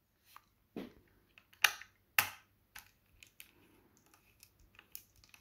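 Irregular small clicks and taps of a screwdriver and screw being worked on a PC motherboard, with a few sharper clicks about one to two seconds in.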